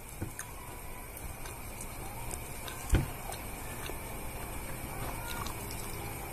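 Quiet eating sounds from a person eating rice by hand off a plate: small faint ticks and scrapes over steady room noise, with one sharp knock about three seconds in.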